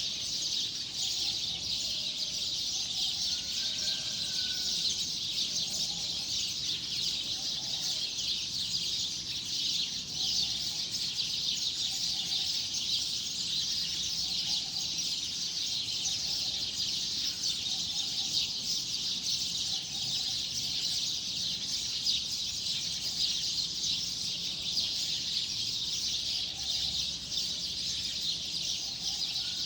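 Dense, continuous chorus of many small birds chirping at once, with a lower call repeating every second or two underneath.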